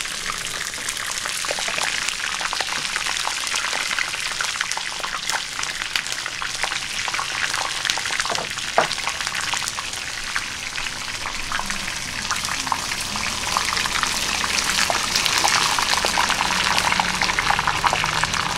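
Food frying in hot oil: a steady, dense crackling sizzle that grows a little louder in the last few seconds. A single knock is heard about nine seconds in.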